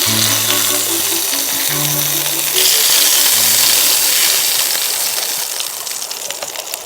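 Background music with a low melodic bass line over a steady hiss of meat sizzling. The hiss swells about two and a half seconds in and fades near the end; it comes from steak searing over a wood fire.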